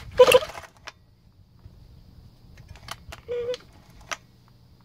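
Hand tools clinking and clicking on the valve rocker adjuster of a small four-stroke trimmer engine as a wrench and hex key set and lock the adjusting nut. A loud clink comes just after the start, then a few lighter clicks around three and four seconds in.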